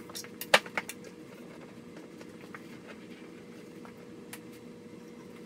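A few sharp clicks and light knocks in the first second as a pencil and plywood board are handled against the laser engraver's metal frame, then a steady faint hum with one constant tone.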